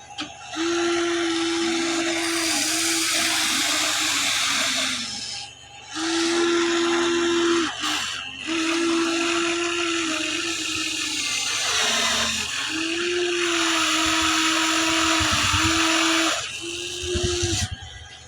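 Electric motors of a Huina 1594 RC excavator whining at a steady pitch as its arm, boom or tracks are driven, in five runs of one to five seconds with brief pauses between them.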